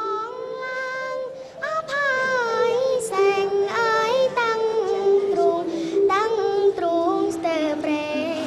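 A young girl singing a song in Khmer solo, a slow melody of long held notes that bend and waver, in several phrases with short breaths between them.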